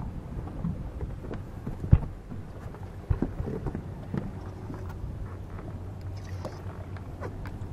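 Noise aboard a small boat: wind on the microphone and water against the hull over a steady low hum, with scattered knocks, one sharp and loud about two seconds in and another about a second later.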